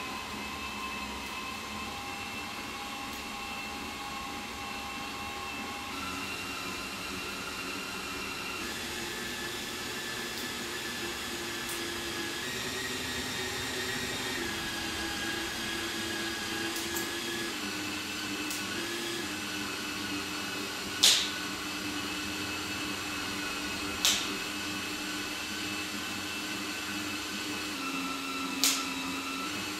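Cordless drill running steadily as it turns the Lil Buddy Mongoose windshield-removal winder, reeling the cutting line through the urethane bead; its whine shifts pitch in steps several times. Three sharp clicks sound in the second half.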